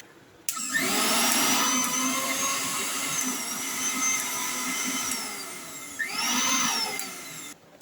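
Electric mixer grinder's motor switched on, spinning up with a rising whine and running at full speed, winding down about five seconds in, then run briefly again before stopping near the end.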